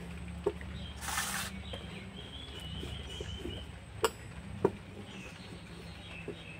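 Wooden rolling pin rolling out dough on a board: a low rumble with a few sharp knocks, the loudest about four seconds in.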